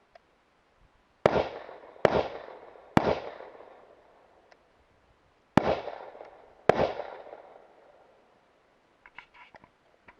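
Five rifle shots: three about a second apart, a pause of two and a half seconds, then two more. Each has a long echo that dies away over a second or more. Faint small clicks and rattles near the end.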